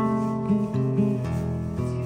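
Background music: an acoustic guitar strumming and picking chords in a steady rhythm, with a new chord or note struck about every half second.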